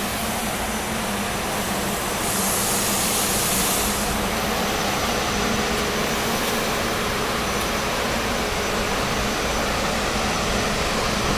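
SEPTA electric commuter train standing with its onboard equipment running: a steady hum with a thin high-pitched whistle throughout, and a brief hiss about two seconds in.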